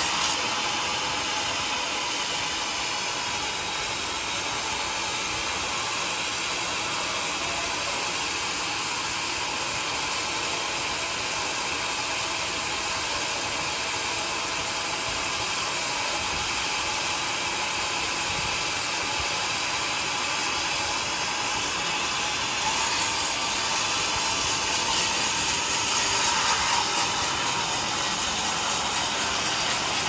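Band sawmill running, its blade sawing lengthwise through a mahogany log: a steady, even noise that gets a little louder about three-quarters of the way through.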